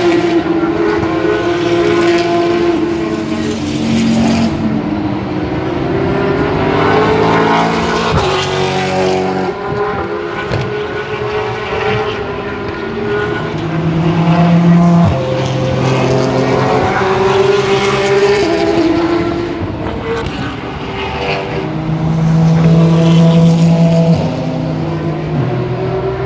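Race car engines passing through a corner one after another, the engine note gliding up and down as each car goes by, with loudness swelling and easing several times over the steady din of other cars on the circuit.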